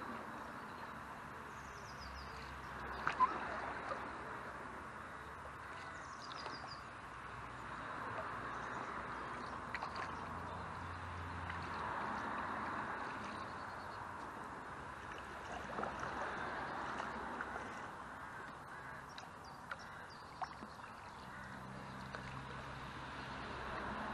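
Paddle strokes pulling through river water beside an inflatable canoe, swelling and fading in a slow, even rhythm about every four seconds. There are a couple of sharp knocks about three seconds in.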